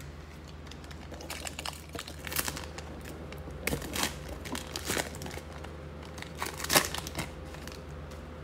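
Plastic wrapper of a pack of basketball trading cards crinkling and tearing as the pack is ripped open, in scattered crackles with the loudest about two-thirds of the way through.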